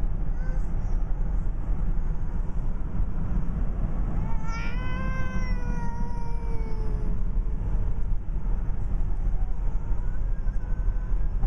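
Steady low road and engine rumble inside a moving vehicle, with a cat giving one long drawn-out meow, slowly falling in pitch, about four and a half seconds in, and a fainter call near the end.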